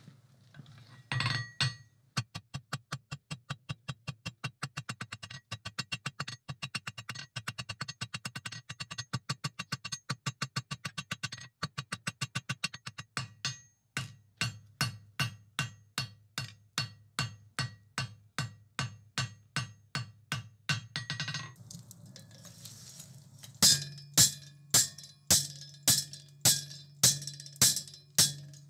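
Hand hammer striking a red-hot 12 mm round steel bar on an anvil, drawing out a slight taper: a long run of quick light blows, about four or five a second, then slower strikes about two a second, the last several louder and ringing.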